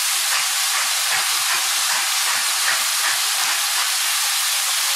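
Ground beef and turkey mince with onion and carrot sizzling in hot vegetable oil in a pan: a steady sizzle with scattered light crackles.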